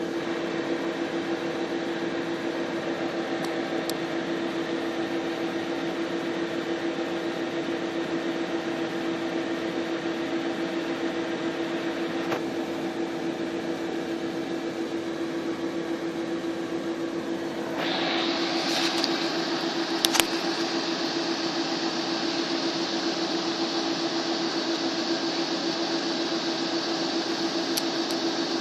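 Audi A6 4F TDI diesel engine running steadily at a raised speed of about 1,500 rpm while a forced emergency regeneration of the diesel particulate filter is active, giving an even hum with one constant tone. About two-thirds of the way through, a brighter hiss joins, and two sharp clicks follow shortly after.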